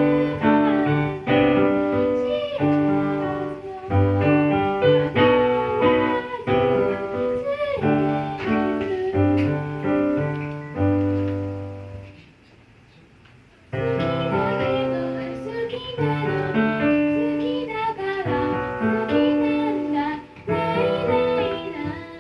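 Electronic keyboard playing a pop arrangement: a melody over chords and a bass line. The playing stops for about a second and a half around the middle, then picks up again.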